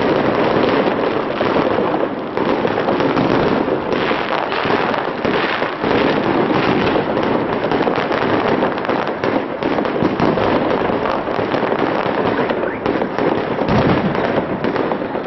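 Fireworks display: a dense, continuous barrage of bangs and crackling shells with no pause.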